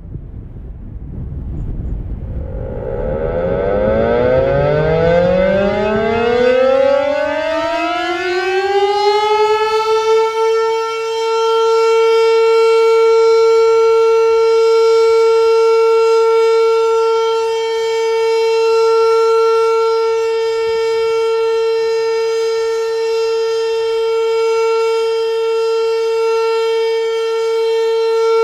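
Federal Signal Model 5 eight-port mechanical tornado siren winding up, its pitch rising over the first ten seconds or so. It then holds one steady tone for a full-alert test signal, the loudness slowly swelling and fading as the siren head rotates.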